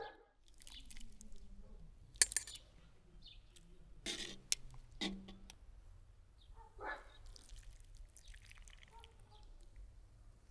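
Sharp clinks of metal tongs and a skimmer against the cauldron and the enamel platter as meat is served out: a loud clink about two seconds in, then several more around four to five seconds in.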